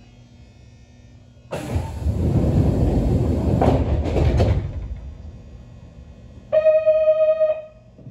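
Yoro Railway 600 series train at a stop: a sudden loud hiss of compressed air lasting about three seconds, then a steady, single-pitched buzzer sounding for about a second near the end.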